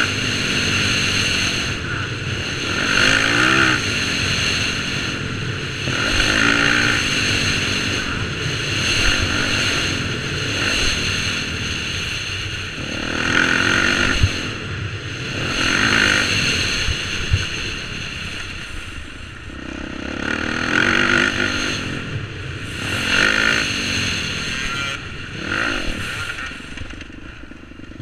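Dirt bike engine being ridden hard, its pitch repeatedly rising as the throttle opens and falling as it shuts off, every few seconds. A couple of sharp knocks come around the middle.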